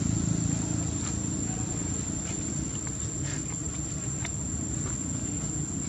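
Outdoor background: a low steady rumble that eases off in the first second, a few faint scattered ticks, and a thin steady high-pitched tone.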